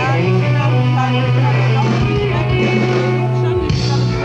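Live rock band playing through the PA, with electric guitars over a long held low bass note that breaks off briefly near the end.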